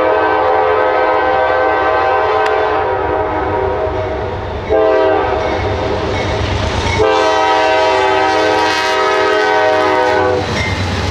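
Multi-chime air horn of a Norfolk Southern GE C40-9W locomotive blowing at close range. A long blast breaks off about four and a half seconds in, then comes a shorter blast and a final long one that ends about ten seconds in, closing a grade-crossing horn signal. The diesel rumble of the locomotives runs beneath as the train draws up and passes.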